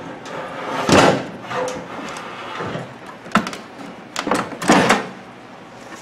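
Knocks and clunks of a microwave oven's door being opened and handled: the loudest about a second in, a sharp click a little past the middle, and a cluster of knocks near the end.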